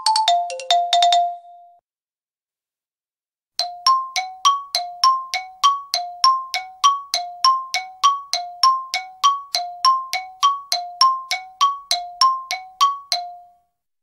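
Xylophone struck with mallets: a short run of notes ends about a second in. After a pause of about two seconds comes an even back-and-forth between two notes, roughly three to four strikes a second, stopping near the end.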